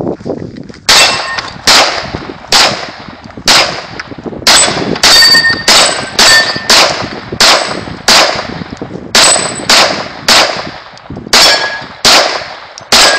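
A string of about twenty pistol shots fired a little under a second apart, starting about a second in. Several shots are followed by a short ringing ping, the sound of steel plate targets being hit.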